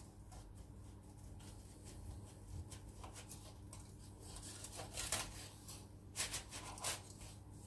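Faint rustling and crinkling of baking paper as hands handle a baked oat-and-carrot flapjack on a wooden chopping board, in a few short bursts about three, five and six to seven seconds in.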